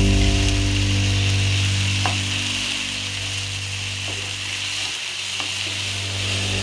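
Prawns, onion and garlic sizzling in oil on a nonstick tawa, with a few light clicks of a wooden spatula stirring them against the pan.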